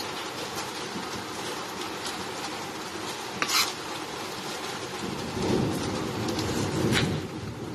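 Kitchen knife slicing a piece of fresh ginger on a cutting board, with louder rustling cutting noise starting about five seconds in and a sharp knock near seven seconds as the blade meets the board. A sharp tap comes about three and a half seconds in, over a steady hiss.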